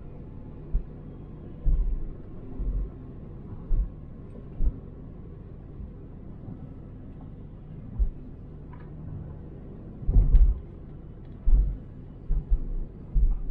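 Road noise inside a moving car's cabin: a steady low rumble broken by irregular heavy low thumps every second or two, the loudest a cluster about ten seconds in.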